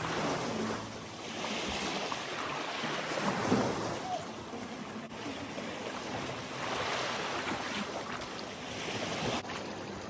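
Ocean surf washing ashore, the rush of water swelling and fading with each wave several times.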